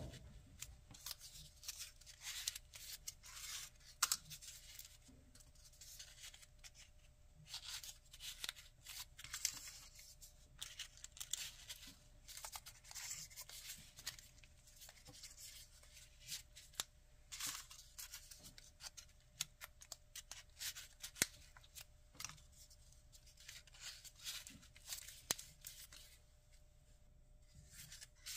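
Folded paper units of a 3D origami model rustling and scraping as they are pressed and slid into one another by hand: irregular dry crinkles and scrapes, several a second, with short pauses between.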